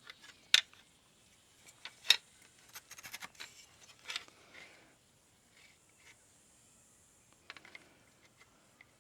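Sliding bevel being set against a timber block: scattered sharp clicks and taps with light scraping, including a quick run of clicks around three seconds in.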